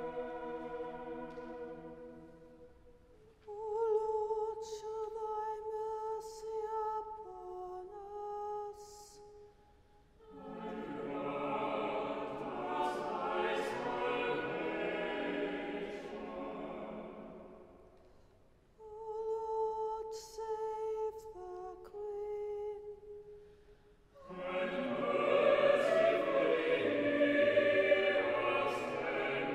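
Sung versicles and responses at Choral Evensong: twice a single voice intones a versicle on a near-steady note, dropping slightly at its close, and the choir answers with the response in full harmony.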